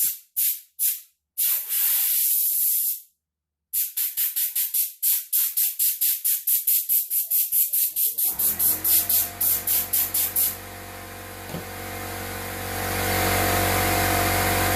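Compressed-air blow gun fired in rapid short blasts, about four a second, with one longer blast about two seconds in, blowing dust out of a lawn mower's paper air filter; the sound cuts out briefly near three seconds. About eight seconds in, an air compressor kicks on and runs steadily, under a continuous hiss of air.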